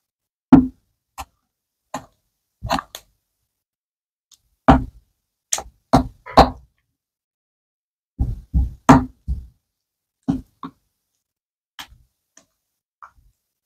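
Wooden spoon knocking against the sides of a cut-glass bowl while stirring a glittery slime mixture: a dozen or so sharp, irregular clacks, several in quick succession about halfway through, with silence between.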